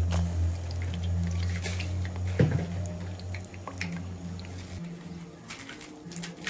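Pieces of toasted dried chile dropped by hand into a pot of water: light splashes with crisp taps and crackles, and one sharper knock about two and a half seconds in. Underneath is a low steady hum that stops about three-quarters of the way through.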